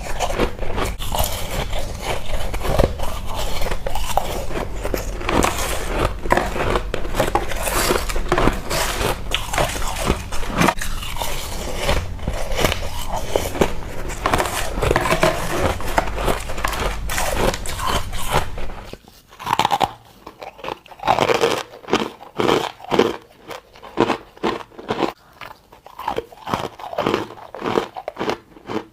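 Ice being bitten and crunched close to the mic, dense and continuous at first over a steady low hum. About two-thirds of the way through, the hum stops abruptly and the crunches come one by one with quiet chewing between.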